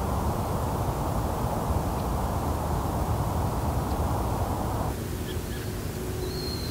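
Steady low outdoor background rumble of wind or distant traffic. About five seconds in it changes to a quieter hiss with a faint steady hum, and a short high whistle sounds near the end.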